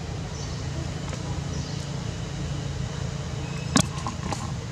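Steady low outdoor background rumble, with one sharp click about four seconds in.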